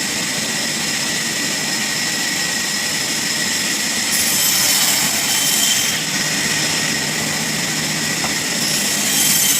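Sawmill machinery running steadily with a faint high whine, and a louder hiss about four seconds in and again near the end.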